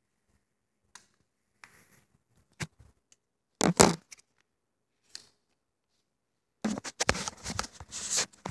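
Handling noise of an airsoft gun and its plastic flashlight foregrip held in the hand: scattered small clicks, a loud rustle about three and a half seconds in, then a longer run of quick scraping and clicking near the end.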